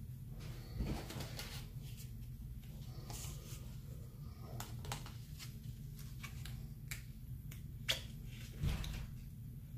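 Scattered small clicks and light taps from handling objects over a steady low hum, with a dull thump about a second in and another near the end.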